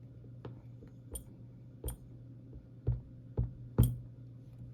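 About six small, sharp clicks and taps of metal tools against an Abus 72/40 padlock's parts as its tiny pins are being worked out, over a steady low hum.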